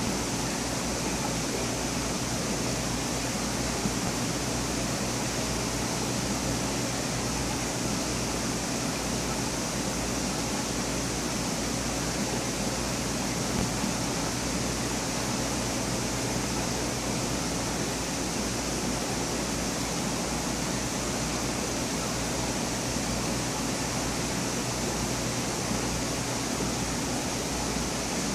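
Steady rush of circulating water with a low hum, typical of a reef aquarium's pumps and filtration, unchanging throughout.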